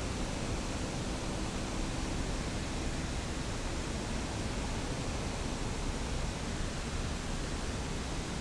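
Steady, even rushing background noise, heaviest in the low end, with no change or distinct events.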